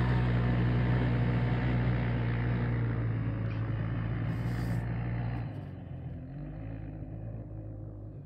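Off-road engine idling steadily at an even pitch close by. It drops to a lower level about five and a half seconds in.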